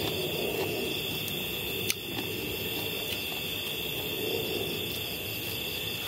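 Steady chirring of night insects, with a single sharp click about two seconds in.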